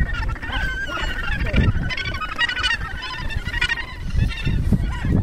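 Breeding colony of Australasian gannets calling: many short calls overlapping one another without a break.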